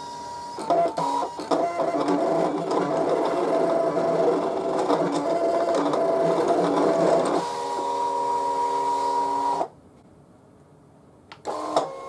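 Brother ScanNCut cutting machine running a cut on a magnet sheet: its motors whine with several steady pitched tones and a fine rattle as the blade carriage and mat move back and forth. The tones steady out for a couple of seconds and then stop about four-fifths in; near the end the motors start again briefly as the mat is unloaded.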